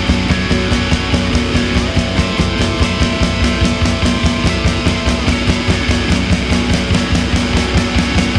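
Live blues-rock band playing with a steady drum beat, electric bass, electric guitar and keyboards.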